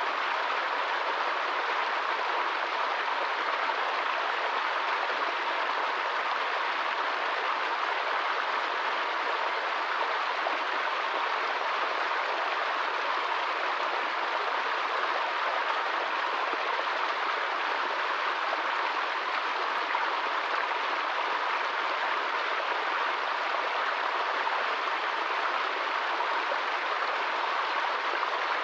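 Small forest stream splashing and cascading over rocks, a steady, even rush of water.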